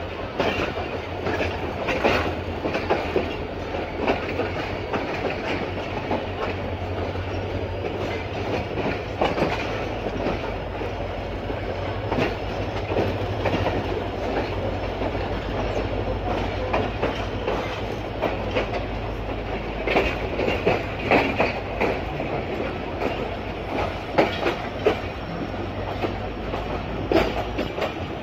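Passenger train wheels clattering over rail joints and yard pointwork as the train pulls out, in irregular clusters of clacks over a steady low rumble.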